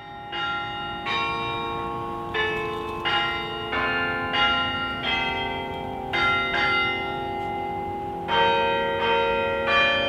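Church bells ringing a sequence of different notes, one bell struck roughly every half second to second, each one ringing on under the next.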